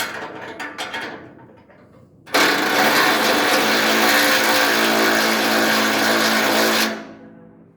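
A small electric motor, like a power tool's, runs at a steady speed for about four and a half seconds, starting abruptly about two seconds in and cutting off sharply.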